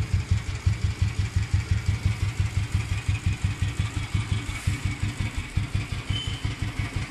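2001 Royal Enfield Bullet 350 Electra's single-cylinder four-stroke engine idling just after a kick start, a steady low thump at about five or six beats a second.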